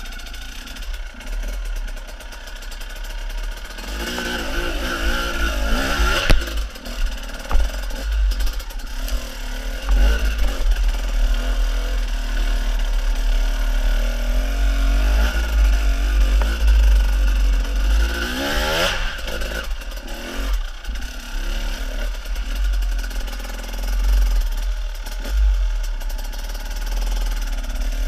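Enduro dirt bike engine running under load on a rough climb. The revs rise sharply about four seconds in and again near nineteen seconds, with a sharp knock about six seconds in over a continuous low rumble.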